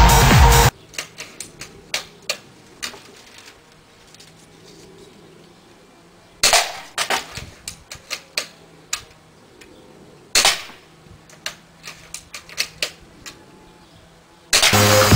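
Two shots from an airsoft sniper rifle, about four seconds apart. Each shot is surrounded by a run of small sharp clicks and knocks.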